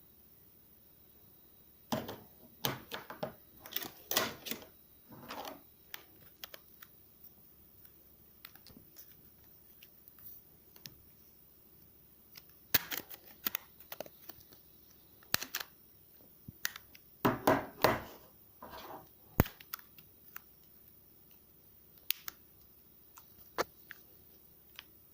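A mobile phone being handled: irregular clicks and taps, some in quick clusters, with brief rubbing between them. No ringtone or alarm sounds.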